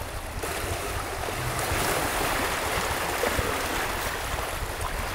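Wind gusting across the microphone and choppy lake water washing against a rocky shore. It makes a steady rushing noise with a low rumble, and it swells about two seconds in.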